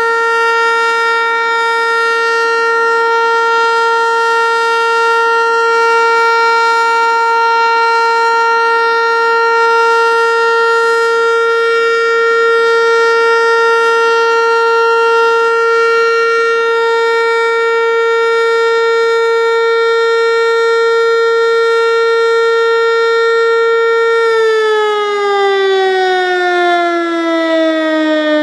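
ASC T-121 outdoor warning siren sounding its steady alert tone, then winding down with a falling pitch near the end as the test signal finishes.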